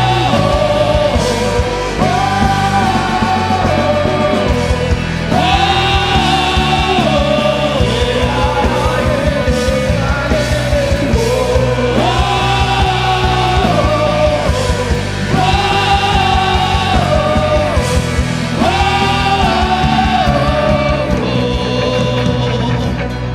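Live rock-style worship band playing loud, with a full drum kit driving steady beats under voices singing long held melody phrases without clear words.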